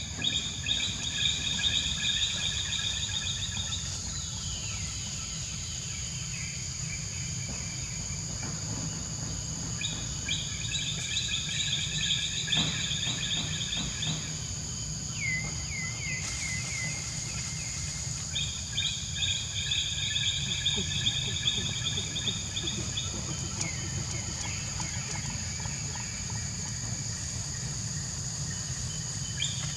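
Tropical forest ambience: a steady high-pitched insect drone with bird calls coming in spells of a few seconds, including a run of short falling chirps midway, over a low background rumble.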